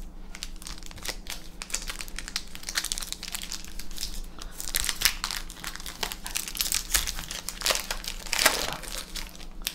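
Foil Magic: The Gathering booster-pack wrapper crinkling and crackling as it is opened and crumpled in the hands, with louder bursts about halfway through and again near the end.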